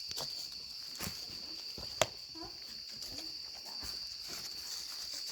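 Steady high-pitched chirring of insects such as crickets, with a few footsteps and knocks; the loudest is a sharp crack about two seconds in.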